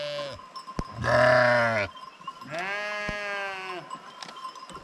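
A flock of sheep bleating: two long bleats, the second higher-pitched than the first, following the tail end of another.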